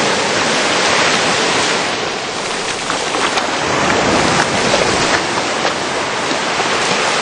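Surf washing onto a beach, a steady rushing hiss that eases a little about two seconds in and then builds again.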